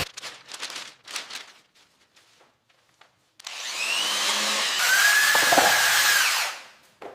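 A few short scraping strokes, then an electric power tool runs for about three seconds, its whine rising as it spins up, and dies away.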